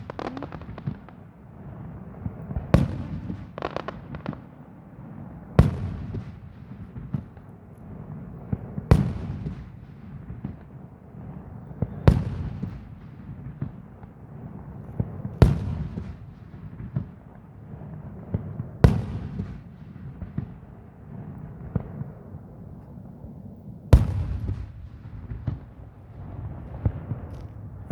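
Fireworks going off: about seven sharp bangs, roughly every three seconds, with a longer gap before the last one near the end. A steady low rumble runs between the bangs.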